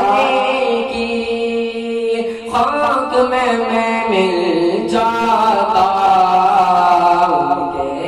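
A man's solo voice singing a devotional Urdu kalam (naat), drawing out long, ornamented notes, with a short break about two and a half seconds in.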